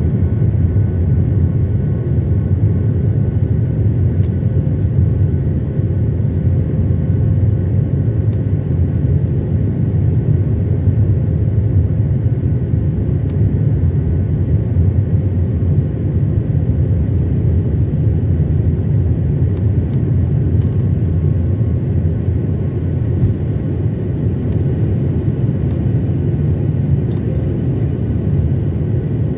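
Jet airliner's engines at takeoff power, heard from inside the cabin during the takeoff roll: a loud, steady deep rumble with a few faint whining tones above it.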